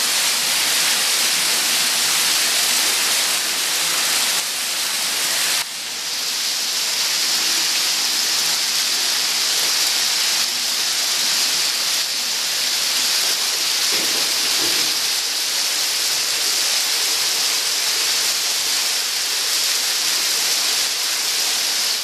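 Small waterfall pouring steadily over cave flowstone: an even hiss of falling and splashing water, dropping a little in level and changing tone about five and a half seconds in.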